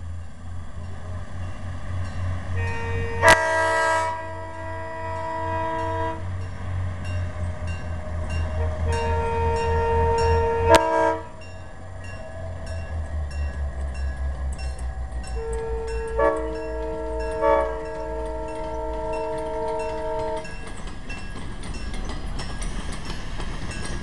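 Small diesel switcher locomotive passing with its engine throbbing low, sounding its multi-note air horn in three long blasts, the last the longest. In the second half the cars' wheels tick steadily over the rail joints as the train of cabooses rolls by.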